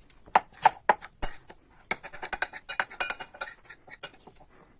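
Thick, salted sourdough starter being shaped into a ball by hand in a bowl: a run of small irregular sticky clicks and taps, busiest in the middle and fading near the end.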